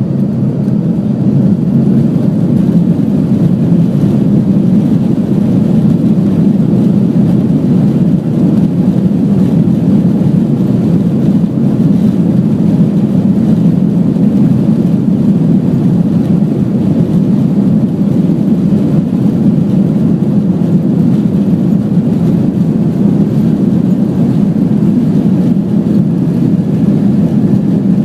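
Airbus A330-300 jet engines at takeoff thrust, heard from inside the passenger cabin as a loud, steady low rumble mixed with airflow noise. It swells over the first second and then holds level.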